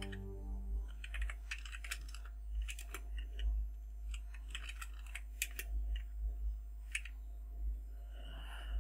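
Typing on a computer keyboard: irregular, separate key presses while assembly code is being edited.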